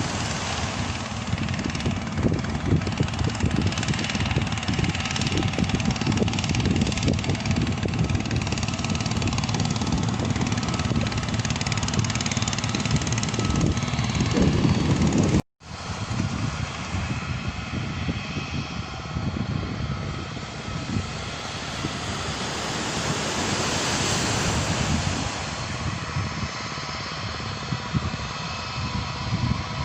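Wind buffeting the microphone with a steady rush of noise; after a brief cut, a jet airliner's engines swell as it passes low overhead, loudest about three-quarters of the way through, then fade.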